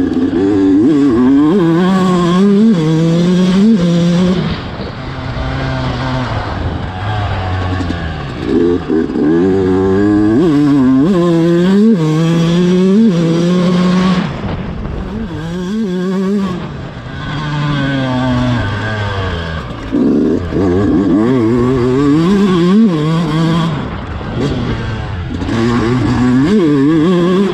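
Yamaha YZ125's single-cylinder two-stroke dirt-bike engine being ridden hard, its pitch climbing and falling over and over as the throttle is opened and closed.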